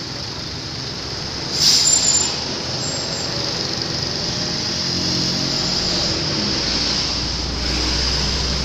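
Roadside traffic noise with a short, loud hiss about a second and a half in, then a heavy vehicle's low engine rumble building through the second half as it passes.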